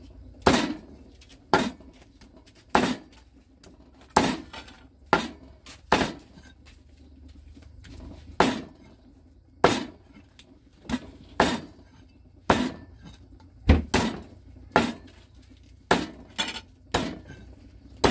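Knife chopping on a cutting board during food preparation: about two dozen sharp knocks, irregularly spaced at roughly one or two a second.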